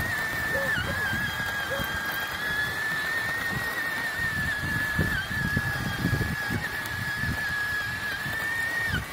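Electric drive motor and gearbox of a child's Honda ride-on toy dirt bike whining at a steady high pitch as it drives along, over a low uneven rumble of its plastic wheels on the concrete sidewalk. The whine dips briefly a few times and drops away at the very end as the bike slows.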